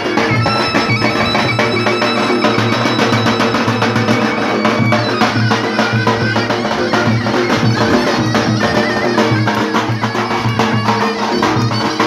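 Turkish folk dance music: a high reedy wind instrument playing a held, ornamented melody over a steady drum beat.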